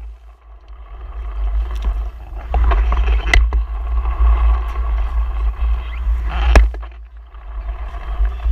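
A vehicle running on the move, with heavy wind rumble on the microphone and a few sharp knocks, loudest about a third of the way in and again near three-quarters through.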